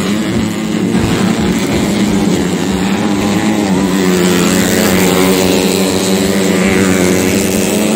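Underbone (bebek) racing motorcycles running hard around a dirt track, a loud, steady engine drone whose pitch bends slightly in the middle as the bikes pass.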